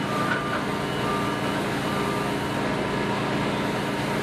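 Factory assembly-line ambience: a steady machinery hum with a few faint held tones, from a power-equipment assembly line.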